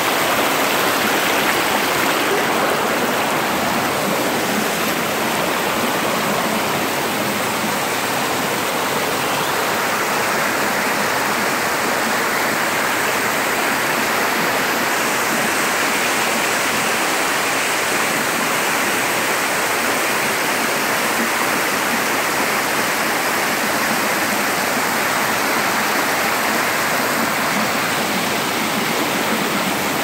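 Waterfall and creek water pouring and splashing over rocks: a steady, unbroken rush.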